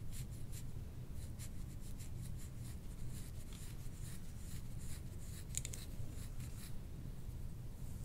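Fingertips scratching and rubbing through hair on the scalp during a massage: a series of short, crisp rustling strokes a few times a second, thinning out in the middle and picking up again about six seconds in. A low steady hum runs underneath.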